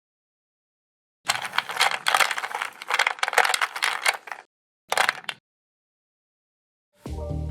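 Meat grinder crushing candy: dense crackling and crunching starting about a second in and lasting about three seconds, then one short burst. Music starts near the end.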